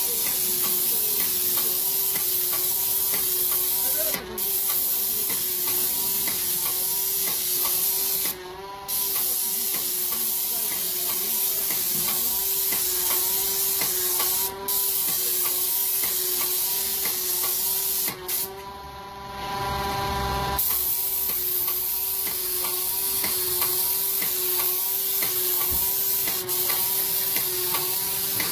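VEZOS Runner Pro hydraulic airless sprayer in use: a loud, steady hiss from the spray gun tip, over the machine's steady hum and a fast mechanical rhythm. The hiss cuts out briefly a few times when the gun stops spraying, the longest break coming about two-thirds through.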